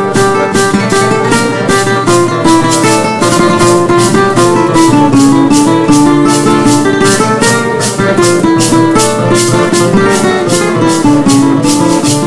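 Music: guitar with a shaken maraca keeping a steady beat of about two to three shakes a second under a melody of held notes.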